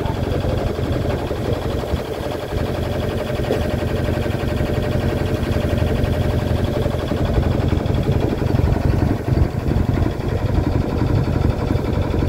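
A 1978 Hughes 35 sailboat's engine running steadily as it motors the boat along, with no wind to sail. It sounds healthy and is running cool.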